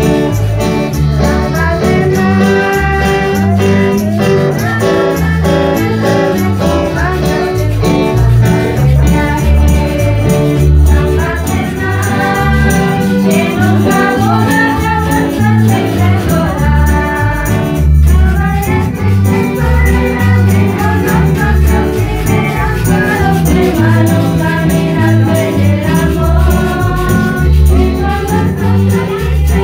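Loud music with singing over a heavy bass line and a steady beat, played through a large PA loudspeaker.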